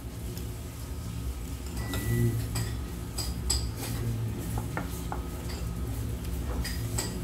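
Scattered light clinks and taps of dishes and chopsticks at a dining table, over a low steady room hum.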